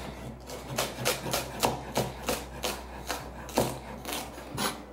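A Chinese cleaver chopping green onions on a wooden cutting board: a steady run of knocks of the blade on the wood, about three a second.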